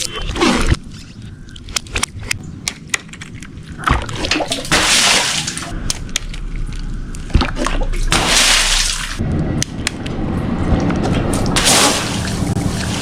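Water splashing and sloshing in several rushing swells, each about a second long, among many sharp clicks and knocks.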